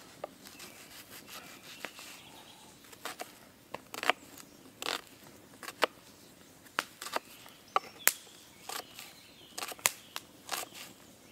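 Knife dicing an onion on a wooden log-slice board: irregular sharp taps of the blade striking the wood, about two a second, between quieter cutting through the onion.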